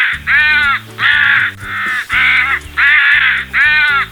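Crow cawing, a run of about six caws in quick succession, over background music.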